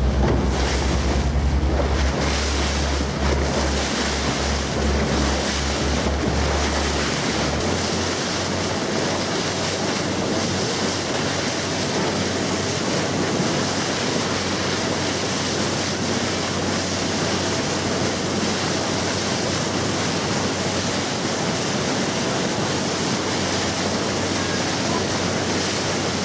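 Wind buffeting the microphone and the rush of sea water around a boat moving through choppy waves, steady throughout. Heavy low buffeting for the first seven seconds or so then drops away, leaving an even rush.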